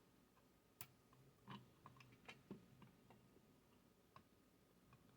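Near silence broken by faint, scattered clicks and light taps, about ten of them, as small parts and tools are handled during the cord repair.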